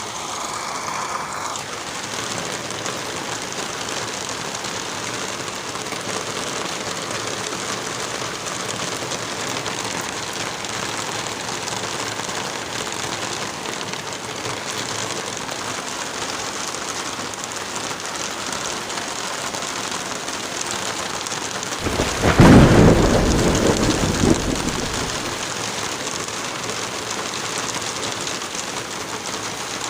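Steady rain falling, with one loud thunderclap about 22 seconds in that rumbles away over about three seconds.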